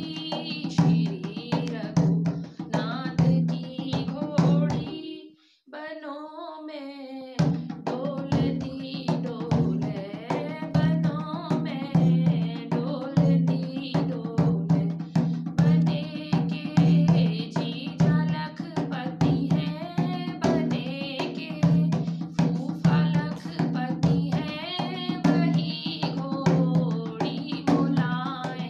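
A woman singing an Uttarakhandi mangal geet, a traditional auspicious wedding-ritual folk song, over a steady drum beat. About five seconds in, the drum drops out for a couple of seconds and her voice carries on alone before the beat comes back.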